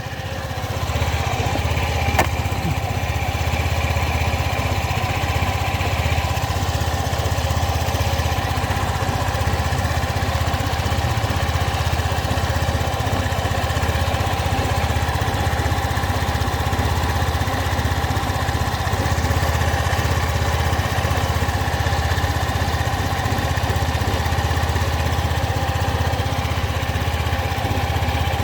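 SYM Duke 125 scooter engine running steadily, with an odd whistling, wind-like whoosh over the engine note: a fault the owner cannot yet explain. There is a single sharp click about two seconds in.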